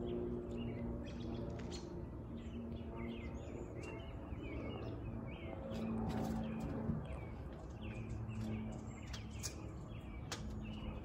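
Small songbirds chirping repeatedly over a steady low drone of twin piston aircraft engines from a Beech 58 Baron, whose pitch drifts slightly.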